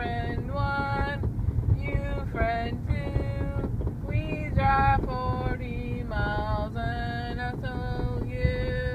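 A girl singing a melody in phrases with long held notes, over the steady low rumble of a car on the road.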